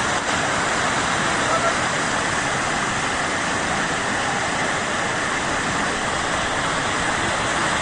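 Fast, churning floodwater rushing down a street: a steady rush of water.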